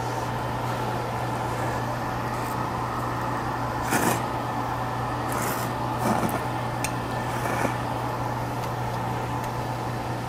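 A person slurping ramen noodles from a small bowl, with short slurps and eating noises near the middle, over a steady low mechanical hum.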